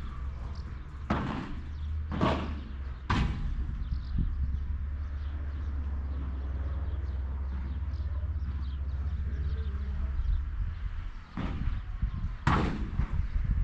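Sharp knocks of a padel ball being struck by rackets and bouncing: three about a second apart near the start, then two more near the end, the last the loudest, over a steady low rumble.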